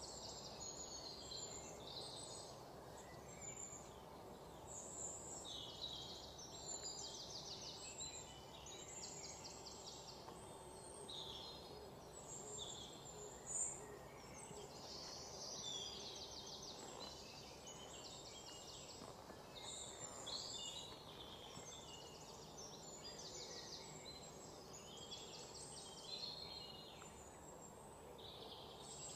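Birds chirping and trilling in short, high, repeated phrases over a faint steady background hiss, with a single sharp knock about halfway through.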